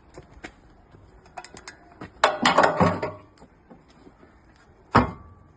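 Metal wrench and fittings clicking and clanking as a bolt is torqued back up, with a dense run of clanks in the middle and one sharp metallic clack about five seconds in.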